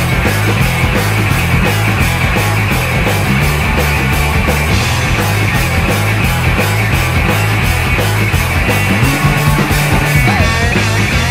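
Rock music with a fast, steady drum beat and a bass line.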